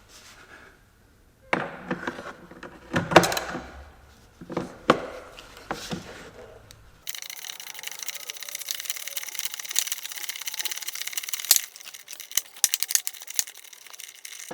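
Metal tools knocking and clattering for a few seconds, then a socket ratchet clicking fast and steadily from about halfway through, breaking into separate clicks near the end as nuts are undone.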